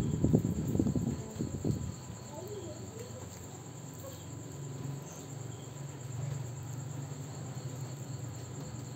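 Crickets chirping steadily in the background. A few low knocks and thumps come in the first two seconds, then a low steady hum sits under the chirping.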